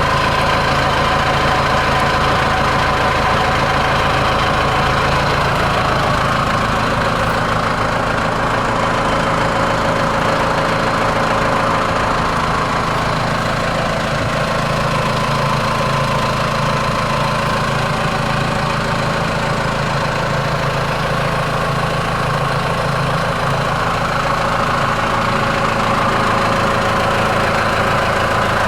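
Tractor engine running steadily, driving a PTO wood chipper, with a steady whine above the low engine pulse.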